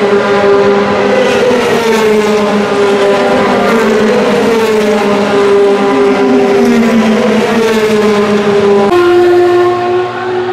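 Race car engines running at high revs as cars pass along a straight, their pitch rising and falling in waves. About nine seconds in it cuts abruptly to a different car's lower, steadier engine note.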